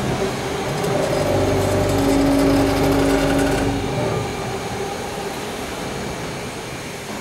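Electro-hydraulic clamshell grab's motor and hydraulic pump running as the jaws are worked: a steady mechanical hum with a held tone. It grows louder about a second in and drops back about four seconds in.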